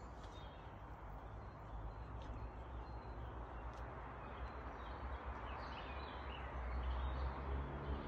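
Outdoor ambience: a few faint bird chirps over a steady low rumble that swells a little near the end.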